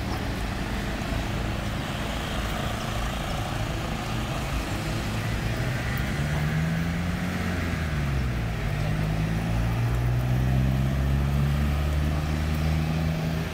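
Engine of a road vehicle running over a low traffic rumble. Its pitch dips a little past the middle, then rises and holds steady as it gets slightly louder.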